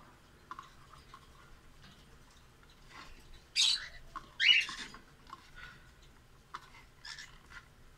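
Pet parrots chirping and squawking: scattered short calls, with two loud harsh squawks about three and a half and four and a half seconds in.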